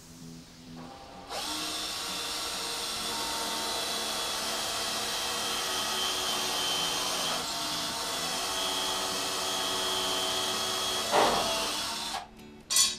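Power drill running steadily for about ten seconds, then a sharp knock about eleven seconds in just before it stops.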